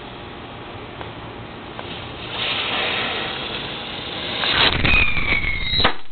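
Small firework fountain (a Tasmanian Devil) burning: a hissing rush of sparks starts about two seconds in and grows louder, with a faint falling whistle, then ends in a sharp pop with a flash of flame near the end.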